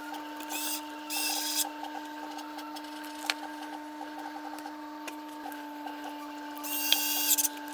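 A machine's steady hum on two even pitches, with three short bursts of high hissing whir, about half a second in, from one to one and a half seconds in, and near the end.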